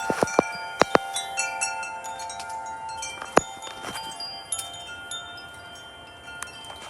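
Metal wind chimes ringing in gusty wind. A cluster of strikes comes in the first second and another about three and a half seconds in, and the chime tones ring on and slowly fade between them.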